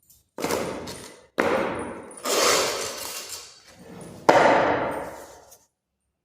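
Four hard strikes on ceramic floor tiles, each ringing out for about a second before the next.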